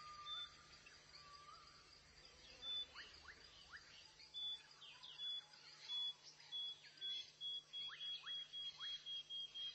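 Birds calling in forest. One repeats a short high note over and over from about halfway, speeding up to about three a second, among scattered short falling chirps over a steady high drone.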